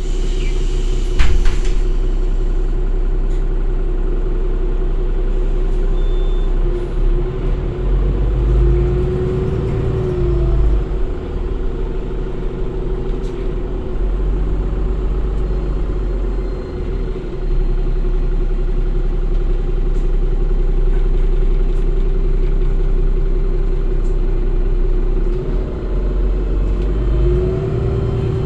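Cummins ISB6.7 inline-six diesel and Voith automatic gearbox of a Solaris Urbino 8.9 LE city bus, heard from inside the passenger cabin while driving: a steady low rumble with a whine that bends up and back down twice. A sharp knock comes about a second in.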